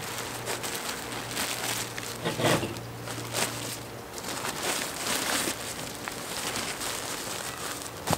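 Rustling and crinkling of a disposable adult diaper's plastic outer shell, in a run of swishes as it is unfolded and smoothed flat by hand.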